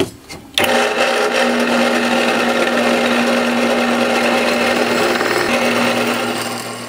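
Drill press running a twist bit into thick-walled steel square tube: a click, then the motor starts about half a second in and runs steadily with the gritty sound of the bit cutting steel, easing off near the end.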